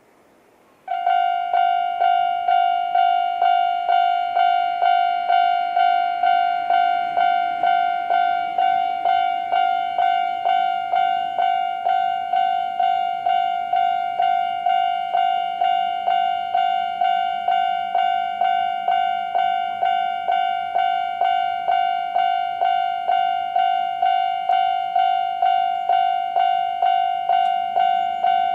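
Japanese railway level crossing's electronic warning bell in the older standard tone, starting about a second in and then ringing on in a steady repeated ding, a little under two strikes a second, each ding fading before the next.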